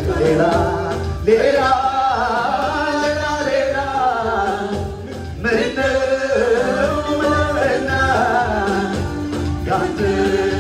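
Loud Eritrean wedding dance music with a singer's wavering, ornamented vocal line over the band; the vocal phrases break off briefly about a second in and again around five and a half seconds.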